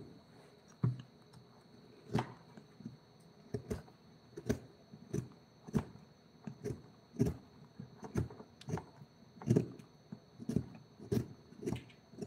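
Wood carving struck with a mallet and chisel: sharp knocks at an irregular pace, one or two a second.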